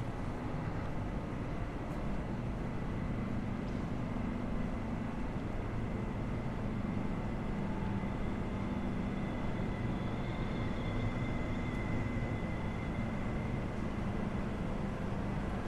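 Steady city street ambience: a constant hum of traffic and machinery with a faint high whine running through it.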